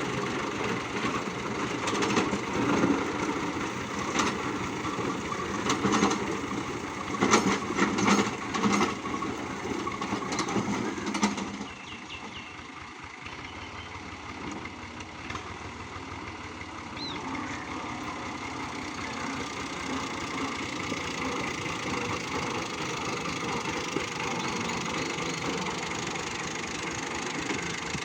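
Fiat 480 tractor's diesel engine running while ploughing, with scattered sharp knocks over it. About eleven seconds in, the sound drops to a quieter, steadier run.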